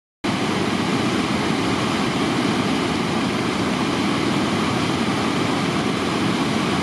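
River in flood pouring over a weir: a steady, deep rush of churning floodwater.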